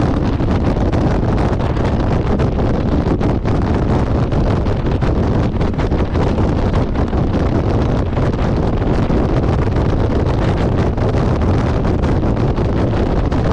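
Wind buffeting the microphone over a motorcycle running at road speed.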